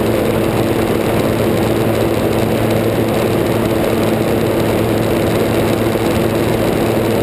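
Gyrocopter in cruise flight: its engine and propeller drone steadily, with air rushing over the microphone.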